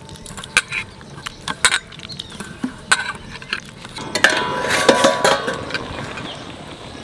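A hand squeezing soaked tamarind in a steel bowl, with a run of small wet clicks against the metal. About four seconds in, an aluminium lid clatters and rings against its pot as it is taken off.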